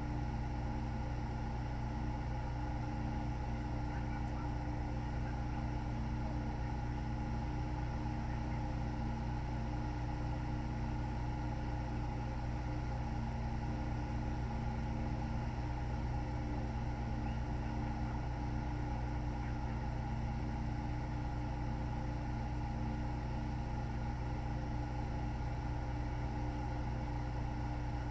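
A low, steady hum with several fixed tones, unchanging throughout, like a running motor or appliance; no rise and fall of breathing stands out.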